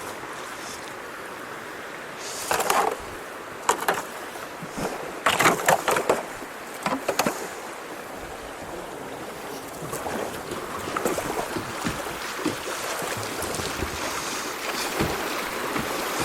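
Kayaks on a rocky creek: water running steadily, with several sharp splashes and knocks from paddles and hulls a few seconds in. The rushing water grows louder through the second half.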